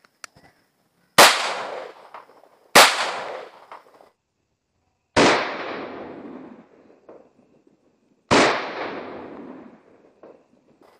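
Four single gunshots from a Mauser C96 pistol in 30 bore (7.63 mm Mauser), fired at uneven intervals about one and a half to three seconds apart, each followed by a second or so of echo.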